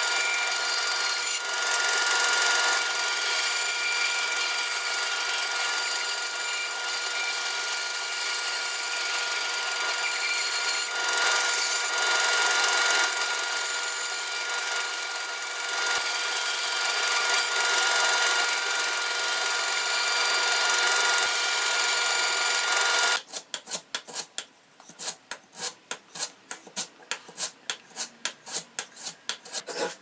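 Bandsaw running and cutting a curve through a wooden board, a steady saw noise with a faint hum of fixed tones. About 23 seconds in it stops suddenly and gives way to quick hand-filing strokes on the wood's edge, about three strokes a second.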